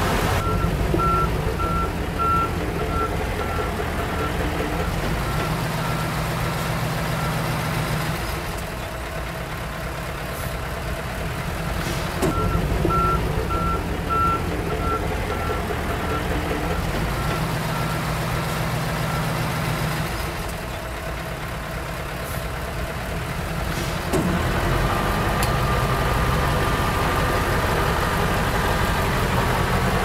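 Komatsu D31 bulldozer's diesel engine working on a site, easing off twice and picking up again. A backup alarm beeps steadily in two runs, starting about a second in and again near the middle, each run fading over several seconds.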